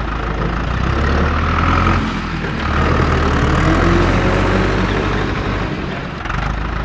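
A heavy engine running steadily with a low hum, easing briefly about two seconds in and again near the end, like a tractor or truck engine idling.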